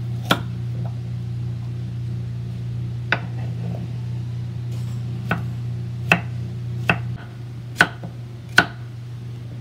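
Kitchen knife chopping carrot and then zucchini on a wooden cutting board: about seven sharp knocks of the blade meeting the board, irregularly spaced, coming closer together in the second half. A steady low hum runs underneath and drops in level about seven seconds in.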